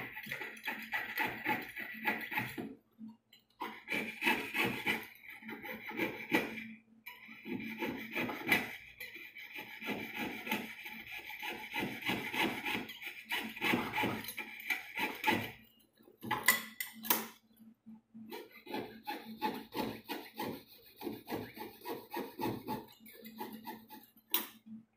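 Jeweler's saw cutting out chain links from a 1.2 mm sheet of old-coin metal, quick back-and-forth rasping strokes that stop briefly a few times.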